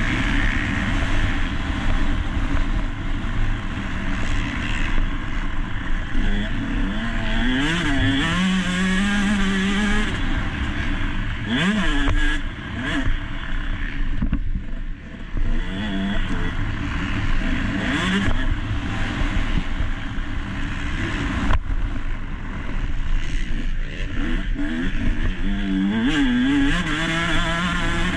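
Motocross bike engine racing hard, heard from on the bike, its pitch rising and falling again and again as the throttle opens and closes through the gears.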